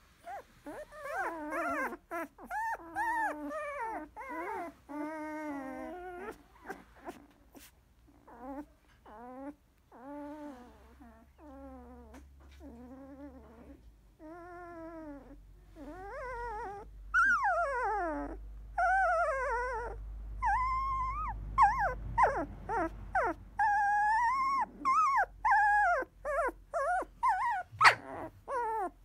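16-day-old Labrador retriever puppies whimpering and squeaking: a string of short, wavering whines that grow louder and higher-pitched in the second half.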